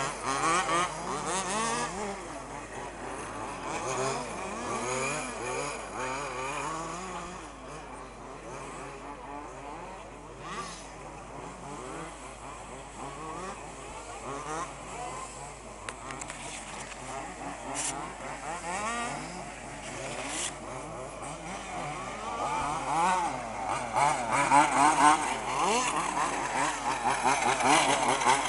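Several 1/5-scale off-road RC buggies racing, their small two-stroke petrol engines revving up and falling back again and again, overlapping. One comes close and is loudest in the last few seconds.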